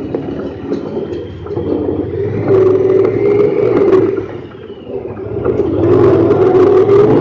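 Honda Pioneer 1000-5 side-by-side's parallel-twin engine running under throttle on a rough trail, heard from inside the cab. It pulls harder about two and a half seconds in, eases off briefly, then climbs again toward the end, where sharp ticks join it.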